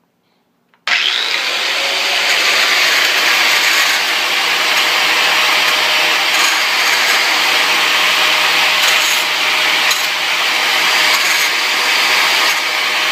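Angle grinder starting up suddenly about a second in, then running steadily as it grinds down a metal mount.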